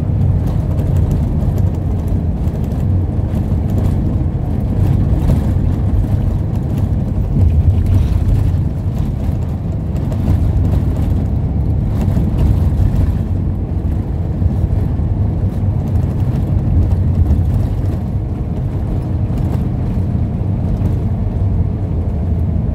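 Steady low rumble of a moving road vehicle heard from inside its cabin: engine and road noise while driving along.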